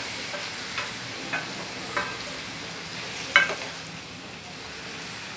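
Marinated chicken pieces sizzling in hot oil and onion masala in a stainless steel frying pan, a steady sizzle, while a spoon stirs them. The spoon knocks against the pan a few times, loudest a little over three seconds in.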